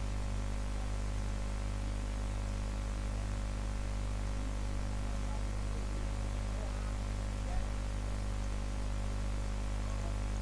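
Steady low electrical mains hum with a faint static hiss, and a brief faint knock about seven and a half seconds in.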